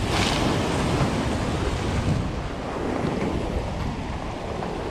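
Surf breaking among granite boulders: a wave hits the rocks with a hissing splash of spray right at the start, then foam keeps washing over the rocks and sand. Wind rumbles on the microphone underneath.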